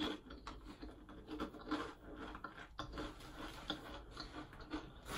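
Quiet, irregular rustling and scraping of hands and clothing handling, with faint small clicks.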